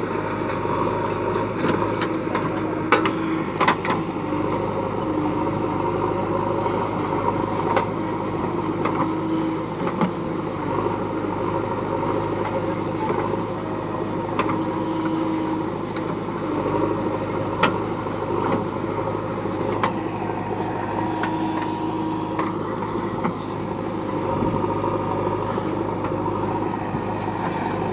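Diesel engine of a JCB backhoe loader running steadily, with a few short knocks scattered through.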